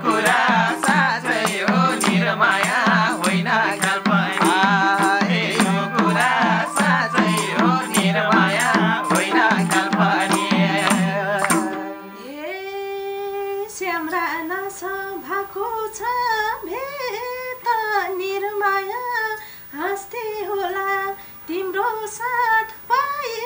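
Nepali lok dohori ensemble playing an instrumental passage: harmonium, madal drums and bansuri flute, with a jingle instrument struck on the beat. About halfway through the band drops out and a woman's voice carries on alone in a long, ornamented sung line.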